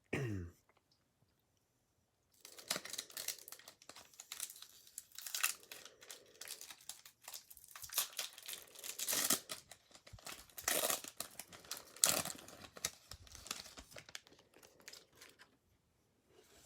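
Foil wrapper of a Pokémon Sun & Moon base set booster pack being torn open and crinkled. The crackling starts about two seconds in and goes on in uneven rustles and tears until near the end.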